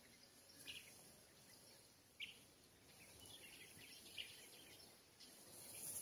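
Near silence: faint background hiss with a few short, faint bird chirps scattered through.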